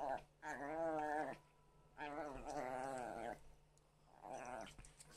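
Domestic cat yowling while tussling with a small dog: two long, wavering calls of about a second each, then a short one.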